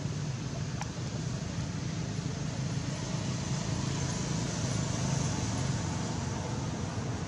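Steady low rumble of outdoor background noise, with no distinct event over it apart from a faint click about a second in.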